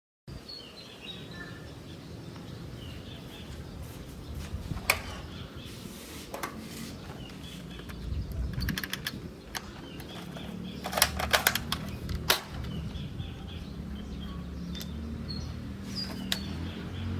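Small birds chirping over a low steady hum, with scattered sharp clicks and clacks and a quick rattling run of clicks about eleven seconds in, from handling the parts of an airsoft L96A1 sniper rifle during assembly.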